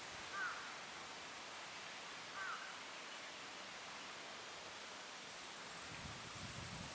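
Outdoor background hiss with a steady high-pitched insect buzz, plus two brief chirp-like calls about half a second and two and a half seconds in, and a low rumble near the end.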